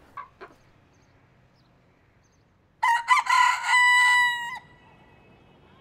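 Broiler-breed rooster crowing once, about three seconds in: a few quick broken notes and then one long held note, under two seconds in all.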